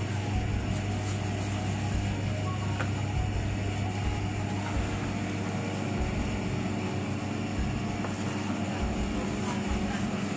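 Steady low drone of a running machine motor, even and unchanging throughout.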